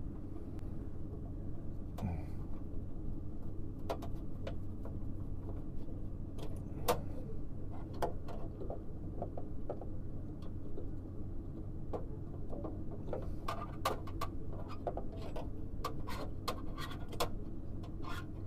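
Steady low hum and rumble of running HVAC equipment, with many small scattered clicks and taps from tools and parts being handled.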